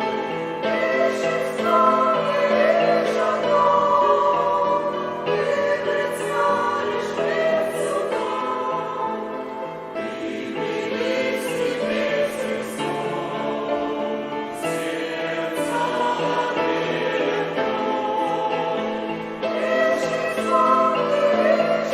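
Choir singing a Russian-language hymn in sustained, slow-moving harmony.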